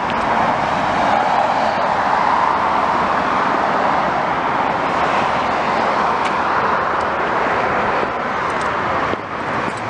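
Steady road traffic noise, an even rush with no breaks, with a few faint light ticks in the second half.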